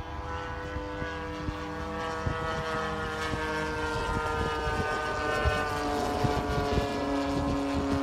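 Large radio-controlled scale model airplane's engine and propeller running in flight overhead: a steady drone whose pitch drops slightly about halfway through.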